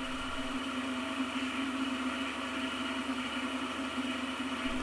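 DMM DYN4 AC servo motor running as a mill spindle drive, with the lower half of the spindle removed. It gives a steady hum built on one strong low tone with fainter higher tones. Its mounts are sanded flat and set on a wooden spacer for vibration isolation.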